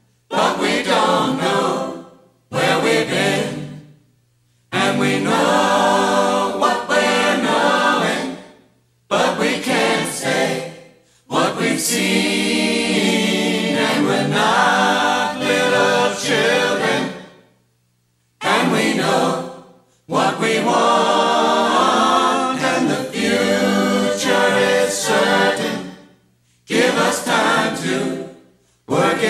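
Music: a choir singing in phrases a few seconds long, separated by short silences.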